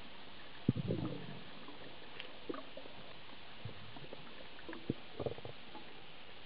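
Underwater sound picked up by a compact camera in its housing: a steady hiss, with low muffled gurgles and knocks about a second in and again near the end, and a few faint clicks between them.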